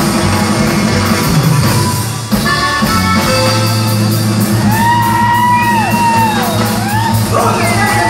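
A norteño band playing live on a PA: button accordion, guitar, bass and drums, with a brief dip about two seconds in. From about five seconds in, a long yell rises and falls in pitch over the music.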